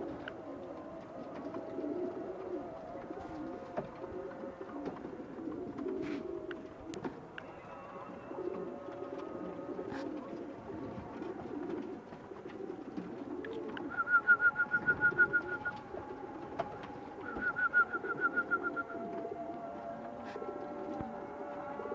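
Domestic pigeons cooing continuously at the loft. Twice, about two thirds of the way in, a loud, rapid high-pitched trill of about ten pulses a second cuts in over the cooing for a second or so.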